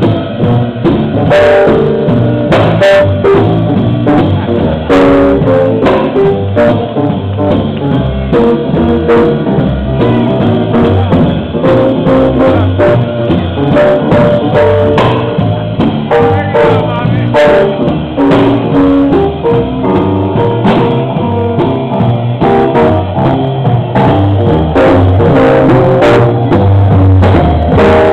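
Upbeat jazzy music with guitar and drum kit, playing continuously with a steady beat for dancing.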